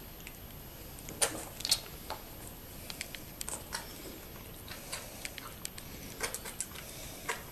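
A young animal sucking milk from a baby bottle's rubber teat: irregular wet smacks and clicks, a few louder ones a little over a second in.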